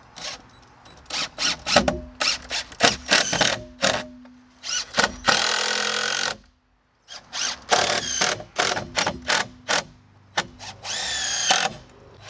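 Cordless drill/driver driving screws into wooden deck blocking. It goes in short bursts with sharp knocks, runs longer about five seconds in and again near the end, and stops briefly a little past the middle.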